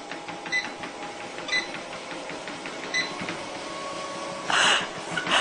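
A metal food bowl clinking as a cat scrapes food out of it: light ringing clinks about once a second, then a short rustling noise near the end.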